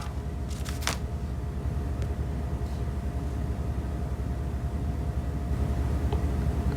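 Steady low rumble with a faint constant hum, with no speech over it, and a faint click or two.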